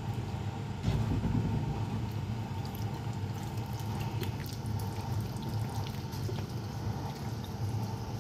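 Wet, squelching sounds of raw chicken pieces being handled in a yogurt-spice marinade, with small scattered clicks, over a steady low hum.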